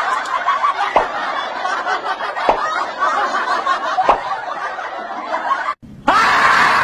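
Snickering laugh-track sound effect, dense and continuous, with a few sharp clicks. About six seconds in it breaks off and a sudden loud scream starts.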